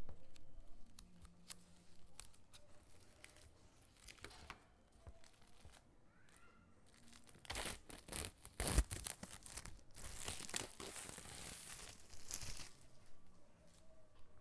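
Packaging being handled and torn open: scattered light clicks and rustles, then sharp tearing noises about eight seconds in, followed by a longer tear lasting a couple of seconds.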